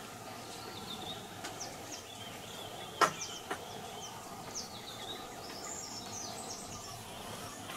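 Birds calling with many short, falling chirps over a steady outdoor background, with one sharp, loud click about three seconds in and a softer one just after.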